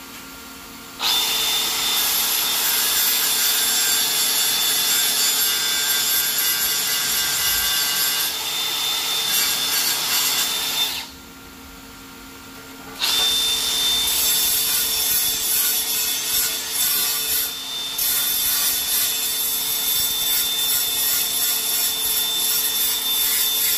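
Angle grinder grinding an old weld and edge off an aluminum tube, with a steady high whine. It runs in two long stretches with a short pause about eleven seconds in.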